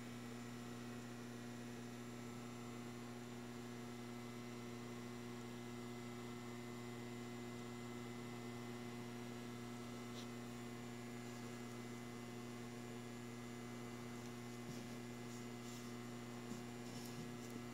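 Steady electrical mains hum, a low buzz with a few evenly spaced overtones. A few faint handling clicks near the end as a small steel cylinder is picked up.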